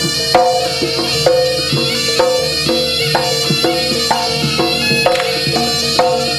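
Live Javanese jaranan ensemble music: drums and struck gong-chime notes on a steady beat of about one stroke a second, over a sustained reedy horn (slompret) line.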